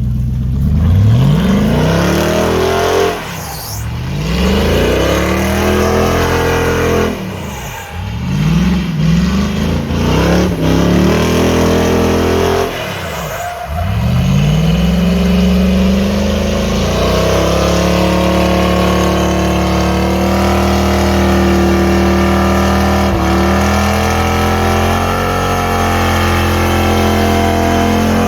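Rat rod Ford pickup truck's engine revved hard several times, the pitch climbing and falling back, then held at high revs for the last half, as in a burnout with the rear tires spinning.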